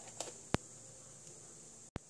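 Faint steady hiss with two short sharp clicks in the first second, then a brief dropout near the end.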